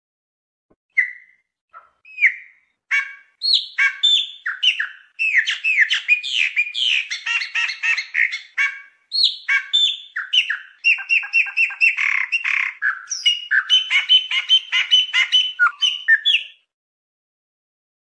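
Chopi blackbird (pássaro preto) singing: a few separate calls, then a long, fast run of whistled and chattering notes that stops about sixteen seconds in.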